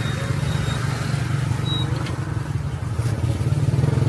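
A motor vehicle's engine running close by: a steady low drone of rapid pulses that grows slightly louder near the end.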